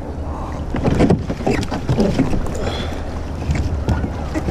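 Water splashing and sloshing as a capsized Hobie tandem kayak is pulled back upright from the water, the heaviest splashing about a second in, with wind rumbling on the microphone.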